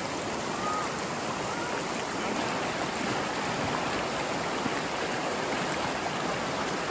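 Fast-running mountain stream in snowmelt runoff: a steady rush of water close to the microphone.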